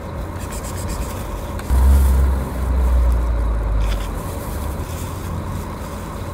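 Plastic bag of dog biscuits crinkling in short bursts as the biscuits are handed out, over a loud low rumble that swells suddenly about two seconds in and eases off near four seconds.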